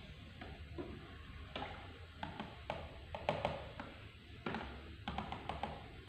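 Metal spoon stirring soapy water in a plastic tub, knocking and scraping against the tub in quick irregular taps and clinks.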